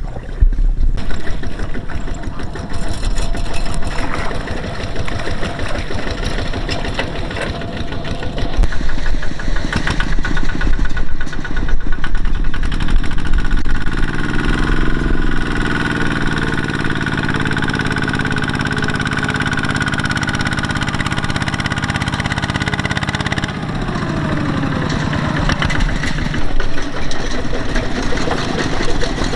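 Engine of a heavy machine running; about halfway through it revs up, holds the higher speed for roughly ten seconds, then drops back.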